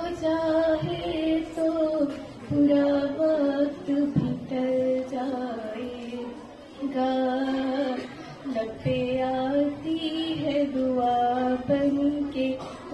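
A teenage girl singing an Urdu prayer-poem solo into a microphone, in slow phrases of long held notes with short breaths between them.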